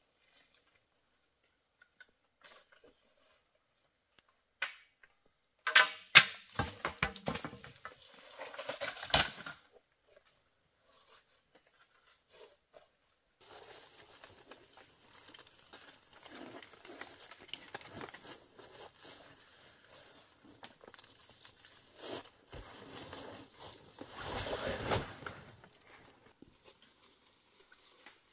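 Dry plant material being handled and torn, crackling and rustling. A loud run of crackles comes about six seconds in, then softer, continuous rustling with a louder patch near the end.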